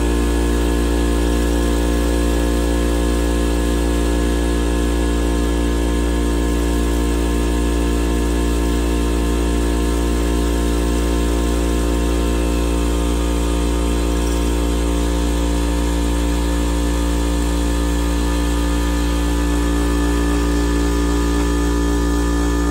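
Milling machine spindle running steadily while its cutter mills an O-ring groove into the gasket face of an aluminium single-cylinder kart engine head: a constant machine hum and whine with an even, fast pulsing underneath.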